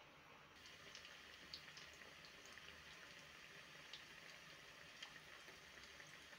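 Faint sizzling of vegetable balls deep-frying in hot oil, with scattered small pops and crackles. It becomes fuller about half a second in.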